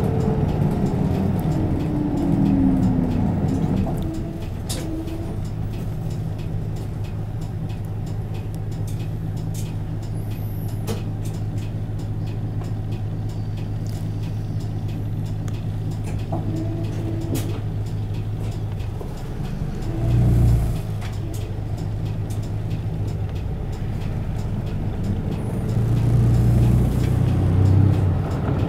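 Isuzu Erga Mio city bus's four-cylinder turbo diesel, heard from inside the bus. Its note falls as the bus slows to a stop, then it idles steadily with a short surge about twenty seconds in. It picks up again near the end as the bus pulls away.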